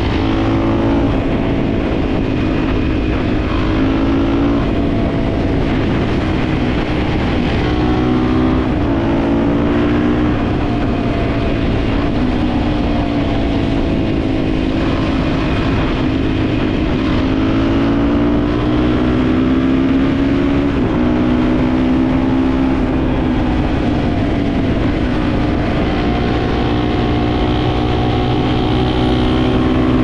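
Dirt bike engine heard on board, running at road speed, its pitch rising and falling repeatedly with throttle and gear changes, over steady wind rush.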